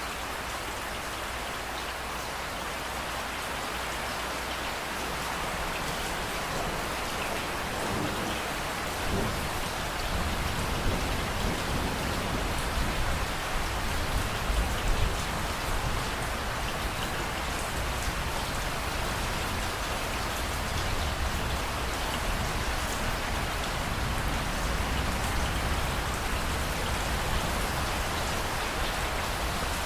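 Steady rain falling, with a low rumble of thunder coming in about a third of the way through and swelling around the middle.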